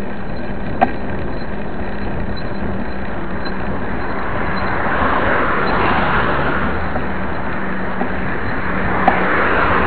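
Cars driving past on an asphalt road: tyre and engine noise swells about halfway through and again near the end over a steady traffic hiss, with a few small clicks.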